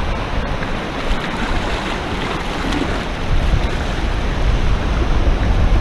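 Surf washing onto the beach, with wind buffeting the microphone and a heavy low rumble.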